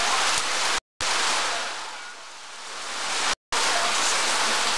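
Rain falling on corrugated roof sheets: a steady hiss. The sound cuts out completely twice, briefly, about a second in and again after about three and a half seconds, and sags in level between the two gaps.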